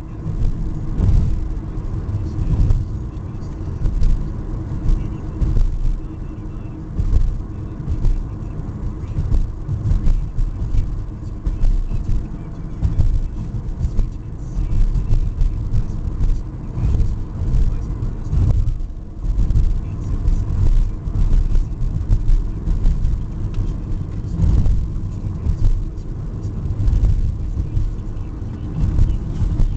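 Car driving, heard as a low rumble of engine and road noise whose loudness rises and falls unevenly.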